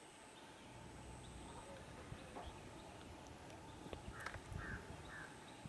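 An animal calling: four short calls about a third of a second apart, starting about four seconds in, over faint outdoor background noise with a few light clicks.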